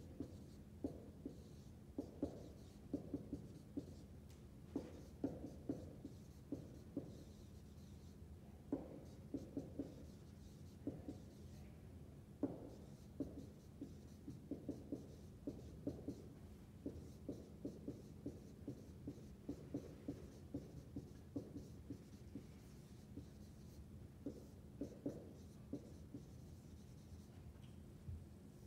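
Dry-erase marker writing on a whiteboard: a run of short, irregular strokes and taps as letters are formed, over a steady low hum.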